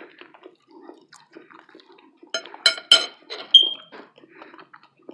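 A person chewing food close to the microphone, with soft wet mouth noises. About two and a half to three and a half seconds in come a few sharper clicks, one followed by a brief ringing tone.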